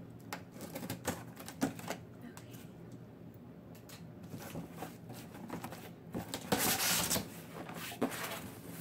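Cardboard shipping box being opened and handled: scattered light clicks and knocks of the cardboard flaps, with a longer, louder scraping sound of cardboard about two-thirds of the way through.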